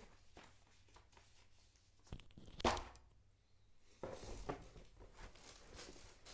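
Packaging being handled during an unboxing: scattered knocks and rustling, with one sharp knock loudest about two and a half seconds in and a cluster of knocks and rustle from about four seconds in.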